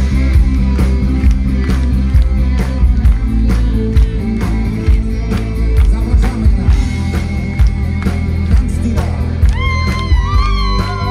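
Live rock band playing: drum kit keeping a steady beat under electric guitars and bass. A high held melodic line with a wavering pitch comes in near the end.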